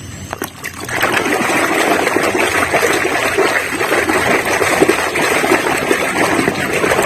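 Water running and splashing steadily, starting about a second in, as a plastic toy is rinsed.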